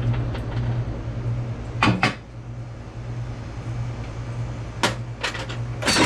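A few sharp metallic clanks and knocks of tools and parts being handled while an air compressor is taken apart, over a steady low hum.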